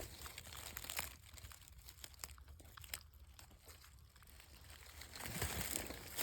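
Faint, close rustling and crinkling with irregular little crackles, easing off in the middle and picking up again near the end.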